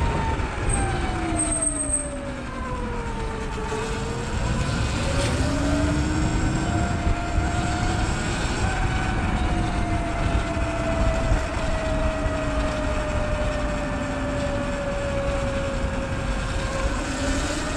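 Sur Ron electric dirt bike's motor whine, a thin tone that falls in pitch over the first few seconds as the bike slows, then rises and holds fairly steady as it picks up speed again. Underneath is a steady low rush of wind and road noise.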